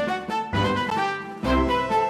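Background music: a brass-led tune over a bass beat that hits about once a second.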